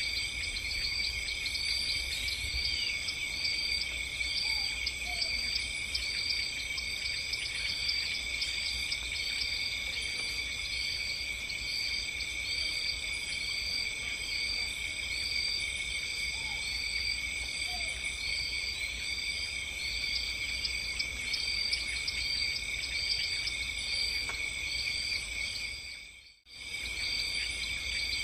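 Chorus of chirping insects, crickets by the sound: a steady shrill drone with repeated chirps over a low rumble. It drops out for a moment about 26 seconds in, then carries on.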